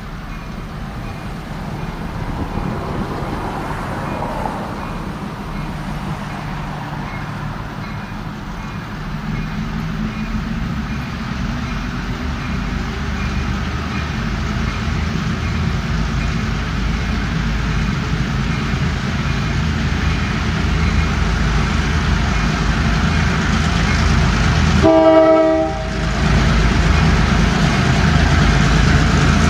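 Four EMD MP15AC diesel switcher locomotives pulling a ballast train, their engine rumble growing steadily louder as they approach. Near the end comes one short blast of the locomotive horn, the loudest sound.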